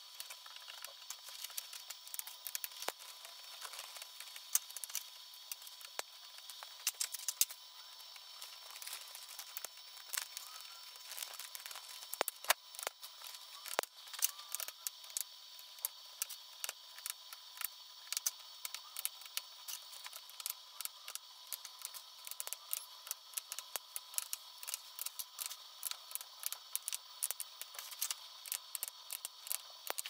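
Black plastic cable drag chain being worked by hand, its links and snap-in crossbars clicking as they are pressed shut over the cables. The small clicks come in a quick, irregular run with no steady rhythm.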